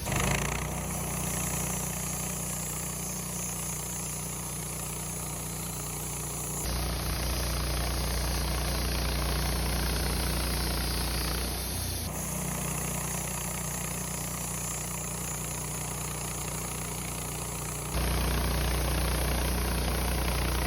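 Wood-Mizer LT15 portable sawmill running steadily while milling a pine log, its engine and band-saw noise holding even and then shifting abruptly to a slightly different, louder sound three times.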